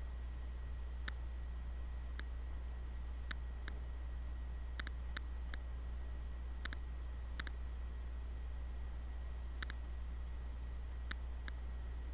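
Computer mouse buttons clicking at irregular intervals, several as quick pairs, over a steady low hum.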